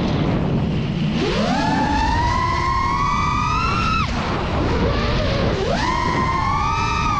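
FPV racing quadcopter's brushless motors and propellers whining, the pitch swooping with the throttle. It is low at first, rises to a high steady whine about a second in, drops sharply around four seconds as the throttle is cut, and climbs again near six seconds.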